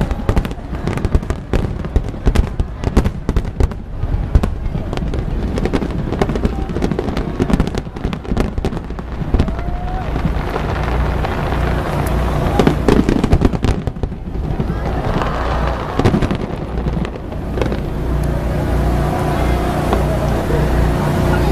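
Fireworks bursting in rapid succession, a dense run of sharp bangs and crackles through the first half, thickening into a continuous din of reports later on.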